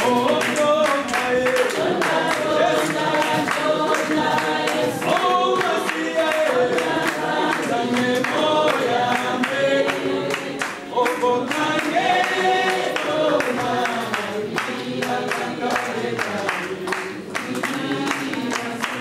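A group of people singing together unaccompanied, with hand claps keeping a steady beat.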